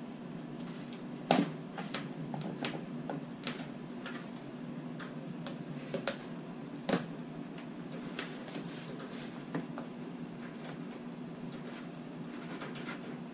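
Scattered light clicks and knocks of items being set down and handled in a plastic incubation tub. The two loudest knocks come about a second in and about seven seconds in, over a steady low hum.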